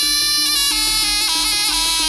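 Live jaranan music: a shrill, nasal double-reed shawm (slompret) plays a melody that steps down in pitch several times, over a steady repeated low note and percussion beat from the gamelan ensemble.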